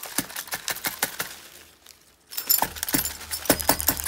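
Broken glass from an alarm clock's face rattling and clinking inside the clock and a plastic bag as the clock is shaken: a quick run of sharp clinks, lighter at first, then louder and denser from about two and a half seconds in after a brief pause.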